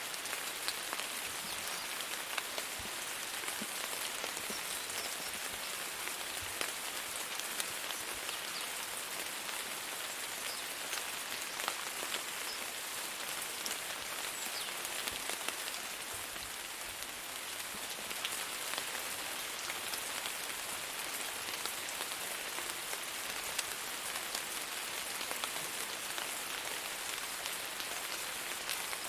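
Steady rain falling on a surface, a constant hiss with many small scattered drop impacts.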